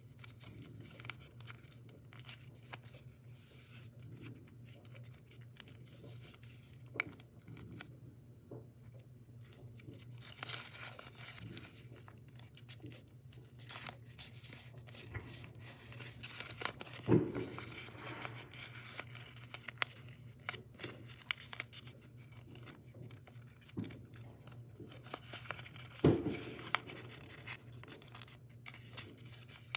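Origami paper being folded and creased by hand: soft rustling and crinkling with small clicks of the paper, over a steady low hum. Two louder thumps stand out, one a little past the middle and one near the end.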